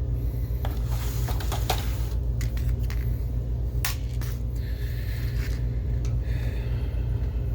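Small clicks and light clinks of screws and metal and plastic parts being handled during projector disassembly, a few sharp ones standing out, over a steady low hum.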